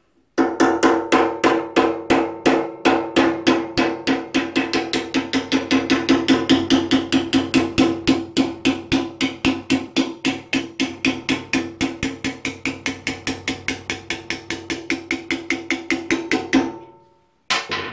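Hammer striking a steel punch in rapid, even blows, several a second, with a metallic ring, driving a seized brake piston out of a 1993 Ford Courier's drum-brake wheel cylinder clamped in a bench vise. The blows begin about half a second in and stop shortly before the end.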